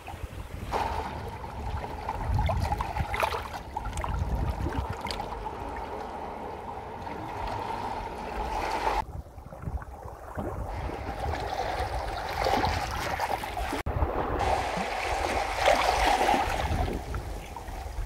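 Shallow seawater lapping and trickling among shoreline rocks, with the sound changing abruptly about a second in, about halfway through and again near fourteen seconds.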